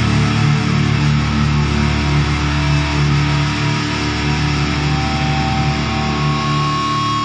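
Metal music: a dense wall of distorted electric guitars holding out steadily, with a high held tone swelling near the end.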